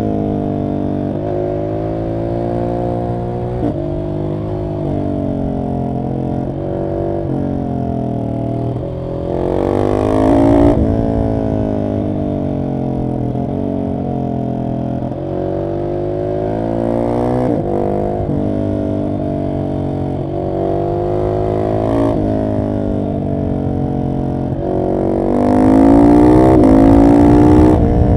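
Single-cylinder engine of a Husqvarna 701 SM supermoto through an Arrow exhaust with the catalyst removed, heard from the rider's seat, pulling up through the gears. The pitch rises and drops back at each shift, with harder, louder pulls about ten seconds in and again near the end.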